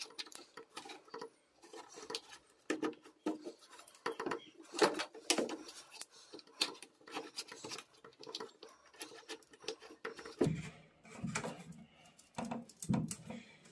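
Irregular light clicks, taps and scraping of plastic as a corrugated plastic washing-machine drain hose is twisted and pried off its spigot with a metal tool.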